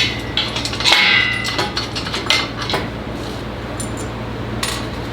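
Metal parts and hand tools clinking and clanking during assembly of a Crossfire plasma CNC table's steel frame, the loudest a ringing clank about a second in, over a steady low hum.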